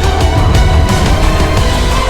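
Loud, dramatic background music with heavy bass.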